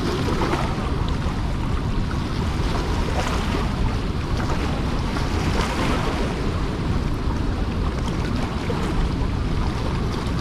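Steady rush of water pouring from the open gates of a dam spillway and churning down the outlet channel, with wind buffeting the microphone.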